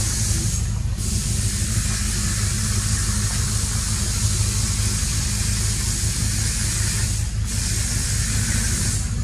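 Steady background noise: a high hiss that cuts out briefly twice, over a constant low rumble.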